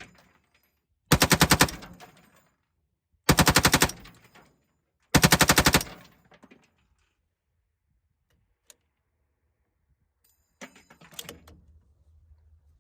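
Lima6 belt-fed AR-15 upper firing 69-grain 5.56 ammunition in three short bursts of rapid fire, each under a second and about two seconds apart, feeding without a stoppage. A brief, quieter clatter follows near the end.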